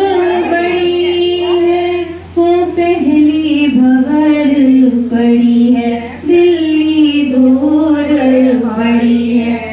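Women singing a devotional wedding song: one melody line of long held notes in phrases, with a short break about two seconds in.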